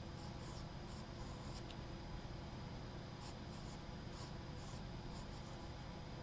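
Charcoal pencil scratching on sketchbook paper in short, faint strokes, over a low steady room hum.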